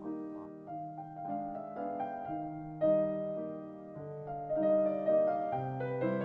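Background music: a gentle piano melody of sustained chords, a new note or chord about every half second.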